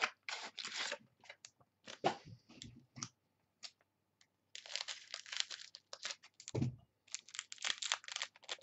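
Crinkling and crackling of plastic trading-card wrappers and sleeves being handled, in irregular spurts with short pauses, and a soft knock about two-thirds of the way through.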